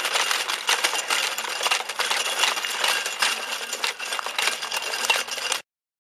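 Rapid, dense clattering of a robot's rotating four-spoked metal wheel-legs striking loose gravel, over a faint steady whine from its small electric drive motors. It stops abruptly shortly before the end.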